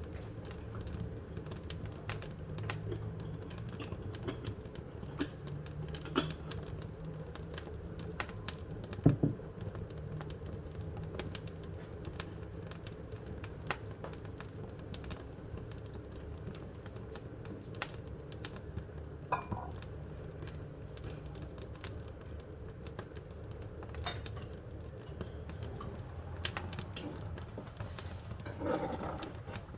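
Wood fire crackling in a wood-burning stove: irregular sharp pops and snaps over a steady low rumble, with the loudest pop about nine seconds in.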